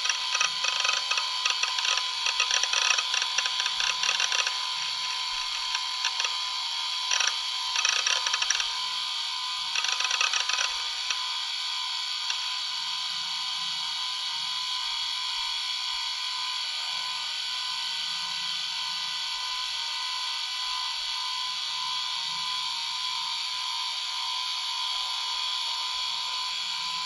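Laptop running: a steady fan whir with a thin whine. Bursts of rapid clicking come and go during the first ten seconds or so, then only the steady whir remains.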